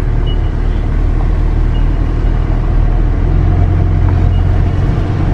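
Car driving slowly, a steady low rumble of engine and road noise.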